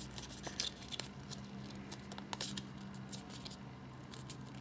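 Small square of origami paper crackling and crinkling as fingers fold and crease it: faint, irregular little clicks, over a steady low hum.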